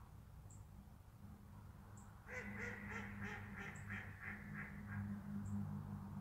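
A duck quacking in a quick run of about ten calls, starting about two seconds in and lasting some two and a half seconds, over a faint steady low hum.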